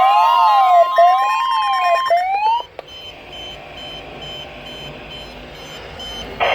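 Weather radio warning alarm: a siren-like electronic tone sweeping up and down about once a second over a steady high tone. The steady tone cuts off about two seconds in and the sweep just after, leaving a quieter radio hiss.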